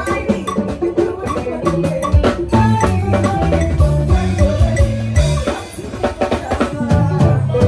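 Live band playing an upbeat groove: drum kit and bass guitar with electric guitar and keyboard. The sound drops briefly about five and a half seconds in, then the full band comes back in.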